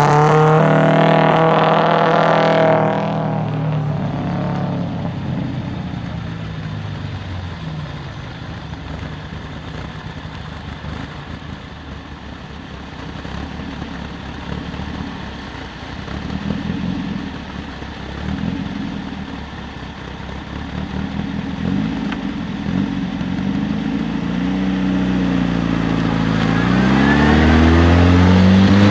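A vintage open racing car's engine, loud at first and fading over the first few seconds as it pulls away. Then an Austin-Healey 100's four-cylinder engine approaches, its pitch rising and dipping with throttle and gear changes, loudest near the end as it passes close by.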